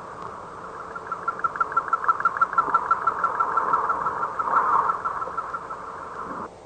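Singing bowl ringing with a steady high tone that wavers in a fast, even pulse of about eight beats a second. The tone swells after about a second, fades gradually and cuts off shortly before the end.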